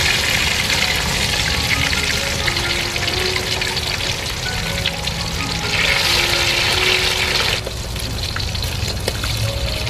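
Fish pieces deep-frying in a wok of hot oil, with a steady dense crackle and sizzle. The crackle drops to a softer level about three-quarters of the way through.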